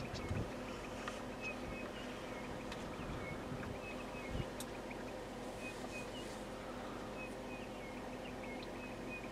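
Small birds chirping, short high notes repeating every fraction of a second, over a steady low hum and a few soft knocks.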